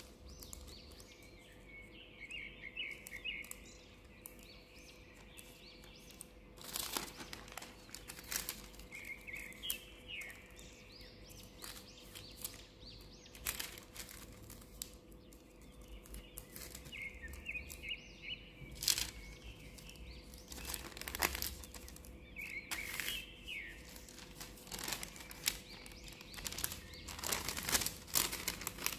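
Sandwich paper being folded and creased by hand, crinkling and crackling in short sharp rustles. Small bursts of bird chirping come every several seconds behind it.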